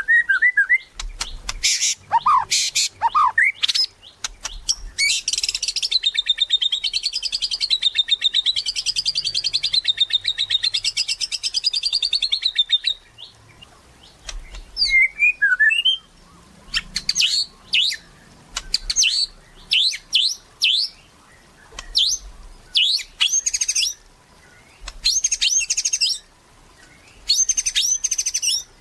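White-rumped shama (murai batu) in full gacor song, loud and varied. It opens with short whistled notes, then about five seconds in gives a long, rapid, wavering trill lasting several seconds. After that come short high phrases separated by pauses.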